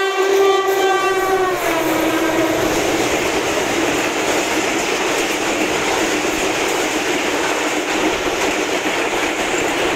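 Diesel locomotive's horn held as the train runs through the station, dropping in pitch about two seconds in as the locomotive passes and fading out. Then the steady loud rush and rattle of the passenger coaches speeding past.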